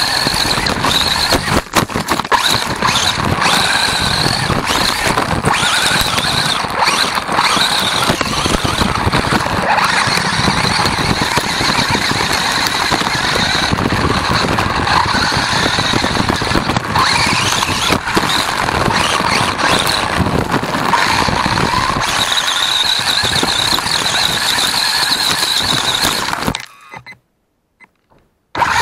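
Electric drivetrain of a WLtoys A959 1:18 RC buggy whining at high speed, its pitch rising and falling with the throttle, over the crunch of its tyres on gravel and the stones they throw up. The sound cuts out for about two seconds near the end, then resumes.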